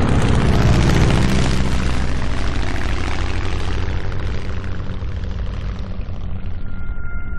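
Propeller aircraft engine droning under a rush of air noise, slowly fading away. About a second before the end, steady high tones come in.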